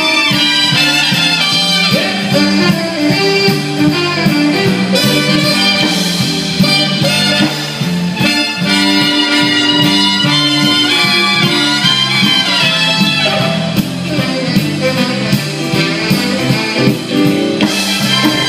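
Live band playing music: drums, electric guitars and keyboards, with a brass-like lead line.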